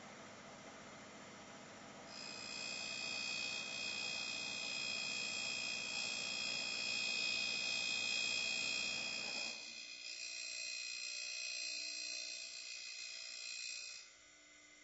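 Darex E90 end mill sharpener grinding the secondary clearance angles on the end of an end mill. From about two seconds in, the grinding wheel's contact gives a steady high-pitched whine over the machine's running noise. The whine stops shortly before the end.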